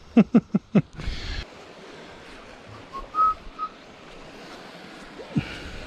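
Whistling: a quick run of about five short falling notes, then three brief high notes about three seconds in, over a steady faint hiss of sea and wind.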